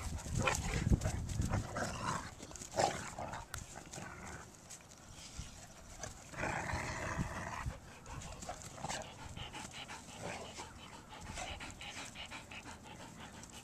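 Two big dogs, a Great Dane and a Great Dane/hound mix, romping together: panting, scuffling and heavy footfalls, loudest in the first couple of seconds, with a dog vocalizing for about a second about six and a half seconds in.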